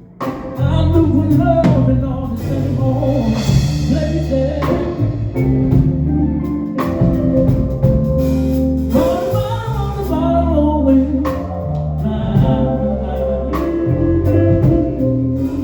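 Live band playing a country song: drum kit and bass under a melody line, steady throughout.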